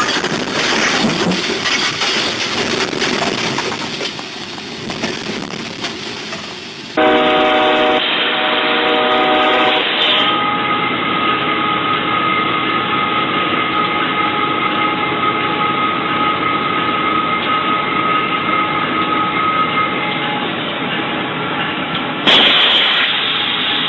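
Locomotive horn blowing a long, steady chord for about twelve seconds, the warning of a train approaching a crossing, preceded by several seconds of loud rushing rumble.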